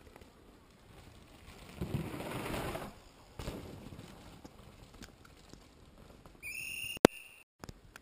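Downhill mountain bike rolling past on a dirt trail: a rush of tyre noise that swells up about two seconds in and passes within a second, with a fainter rush just after. Near the end, a short, steady, high-pitched whistle, then a sharp click.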